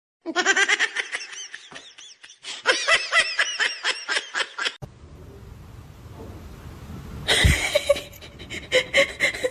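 High-pitched laughter in rapid ha-ha pulses for about four and a half seconds, cut off suddenly. Then steady background noise with one sharp burst, and a few short high sounds near the end.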